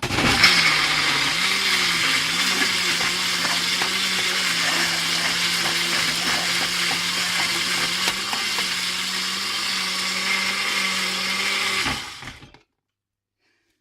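Countertop blender running, blending a thick smoothie of oat drink, berries, avocado and protein powder. Its motor hum wavers in pitch for the first couple of seconds, then holds steady, and it switches off and winds down about twelve seconds in.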